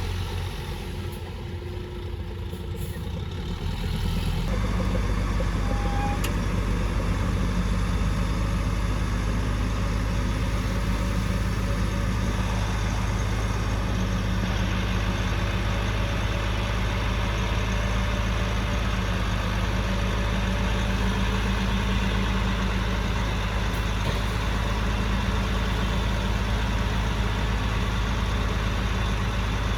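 Heavy construction machine's diesel engine running steadily, growing louder about four seconds in and then holding at a constant pitch.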